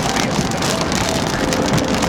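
Car driving in steady rain: rain on the car and road noise as a steady wash of sound.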